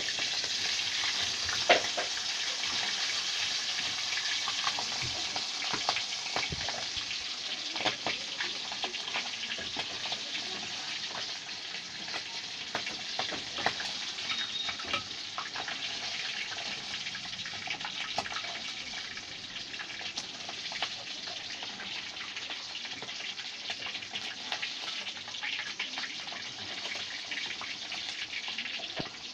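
Food frying in hot fat in a pan: a steady sizzle with frequent small crackles and pops.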